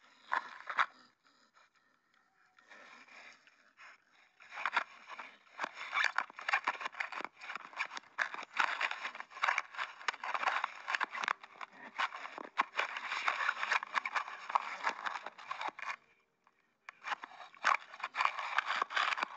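A pig mouthing and chewing an action camera, its teeth and snout scraping and crunching right against the camera in rapid clicks and scratches. The sounds start in earnest about four seconds in, stop for about a second near the end, then start again.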